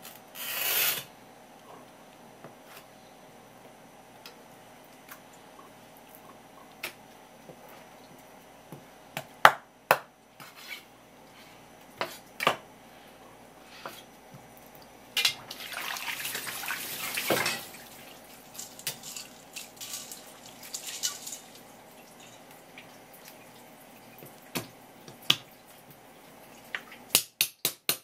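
Knife and hands working on a wooden cutting board while filleting conger eel. There is a short scraping knife stroke at the start, then scattered light knocks and taps, a longer scraping, rubbing passage about halfway through, and a quick series of knocks near the end, all over a faint steady hum.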